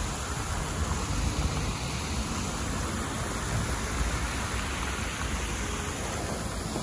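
Fountain jets splashing into a stone basin, a steady rush of falling water with a low rumble underneath.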